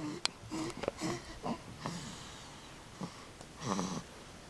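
Snoring in REM sleep: a string of short, wheezy snorts and small squeaky whimpers, about a dozen in a few seconds, one thin high squeak near the start.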